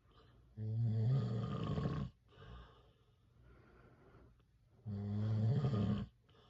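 A man snoring loudly in his sleep: two long, rasping snores with a low buzz, about four seconds apart, with a faint breath between them.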